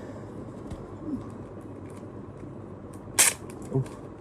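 Hands handling unboxed merchandise: small clicks and rustles, with one sharp snap about three seconds in.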